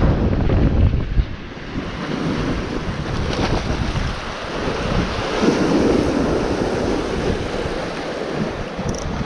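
Sea surf breaking and washing over a rocky shore, swelling louder about halfway through. Wind buffets the microphone in the first second or so.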